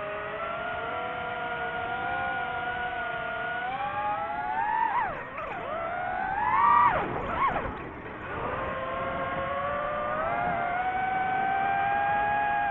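DJI FPV drone's motors and propellers whining, the pitch rising and falling with the throttle. About five to eight seconds in, the pitch swoops sharply up and down several times, loudest near seven seconds, before it settles back to a steady higher whine.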